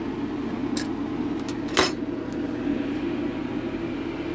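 Kitchen vent fan running with a steady, really loud hum. Over it come a few sharp metal clicks from a fork prying at the lid of an opened tin can, the loudest just under two seconds in.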